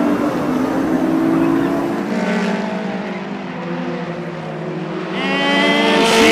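Stock car engines running at speed around a short oval track, several cars at once. The engines get louder near the end as cars draw closer.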